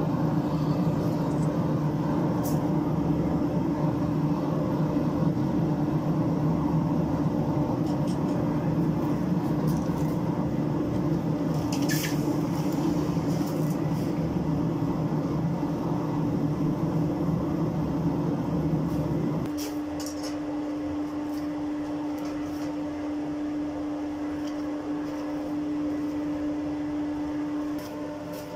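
Forge running: a steady rushing noise with a hum. About two-thirds of the way through, the deeper part of the noise stops abruptly, leaving a quieter steady hum. There is a light metallic clink around the middle.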